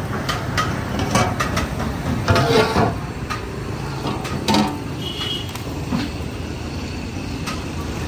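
Busy street noise: a steady traffic rumble with sharp clicks and knocks scattered through it.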